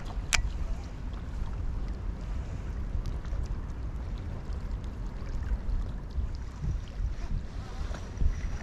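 Wind buffeting the microphone: a steady, uneven low rumble, with one sharp click just after the start.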